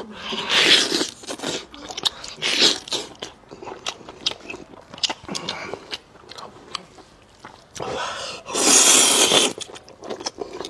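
Close-miked eating of noodles: slurping and chewing with many wet mouth clicks, in several noisy bursts, the longest and loudest about eight seconds in.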